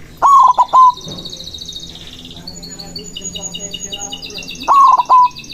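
Zebra dove (perkutut) cooing: two loud bursts of its bubbling, three-note coo, one near the start and one near the end, over a steady background of fast, high-pitched chirping trills from small birds.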